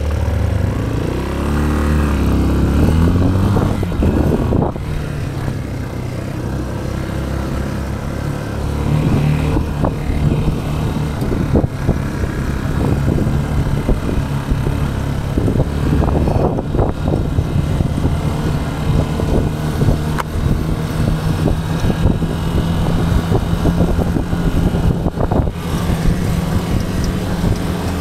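Motorcycle engine pulling away, its pitch rising and falling over the first few seconds, then settling into a steady note with wind noise as the bike cruises.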